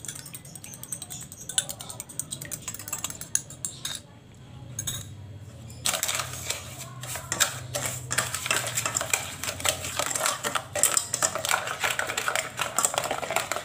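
Eggs being beaten into sugar and agar powder with a spatula in a stainless steel pot: scattered scrapes and taps at first, then rapid, continuous scraping and clattering against the pot from about six seconds in.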